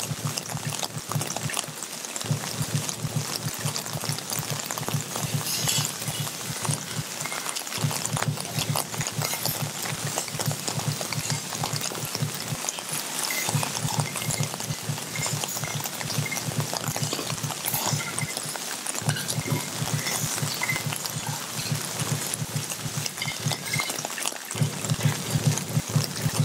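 Rain and water pouring and splashing, a dense crackle of drops over a steady wash. Underneath runs a low, fast, even pulse that stops for a moment about every five or six seconds.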